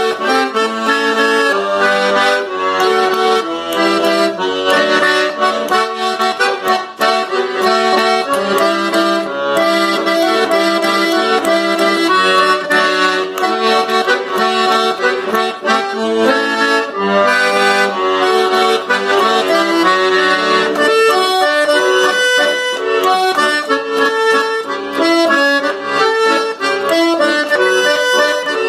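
Instrumental accordion music in a traditional style, a busy melody with many quick notes; the playing thins to plainer, more separate notes about three quarters of the way through.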